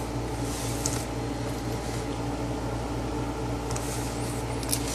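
Steady low background hum made of several constant low tones, with a few faint ticks about a second in and near the end.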